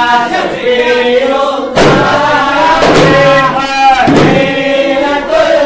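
A group of men chanting together in unison while beating hand-held frame drums, with a loud drum stroke falling roughly once a second.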